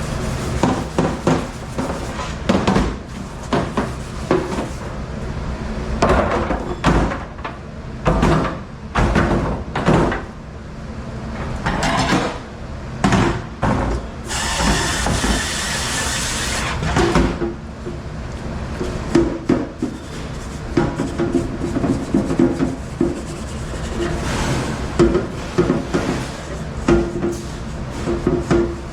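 Busy kitchen clatter: repeated knocks and bangs of handled objects over a steady low hum, with a hiss lasting about two seconds near the middle.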